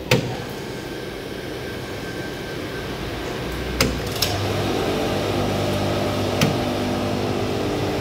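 Push buttons on a reverse-osmosis water plant's control panel clicking a few times, then the plant's electric pump motor starting about four seconds in and running with a steady hum. The plant is being restarted to flush the cleaning chemical out of the membranes.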